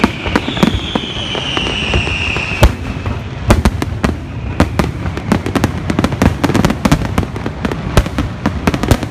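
Fireworks finale: a rapid barrage of aerial shells bursting, the bangs coming thicker and faster from about three seconds in. A high, slowly falling whistle sounds through the first couple of seconds.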